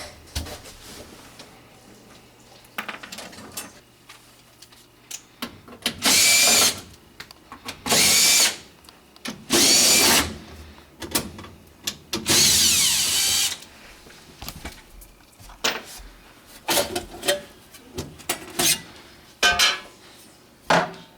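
Cordless drill driving screws back into an air handler's access panel: four short runs of the motor, each gliding up and down in pitch, with clicks and knocks of the panel being handled in between.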